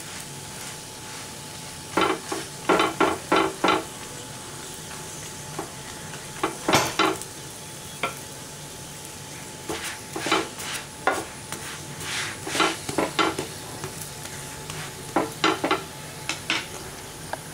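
Chapati frying in oil on a nonstick pan with a steady sizzle, broken by several quick runs of short scraping strokes of a utensil against the pan and bread.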